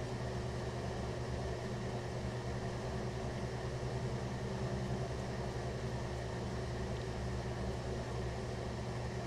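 Steady low hum with a constant hiss underneath, unchanging throughout.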